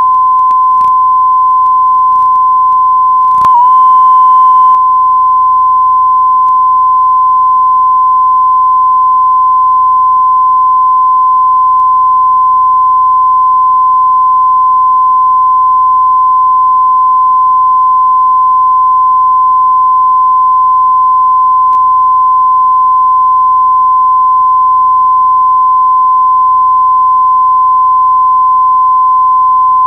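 Steady high-pitched line-up tone, the reference tone recorded with colour bars at the head of a VHS tape, playing without a break. A few clicks come in the first seconds, and a short burst of hiss with a brief wobble in the tone comes about three and a half seconds in.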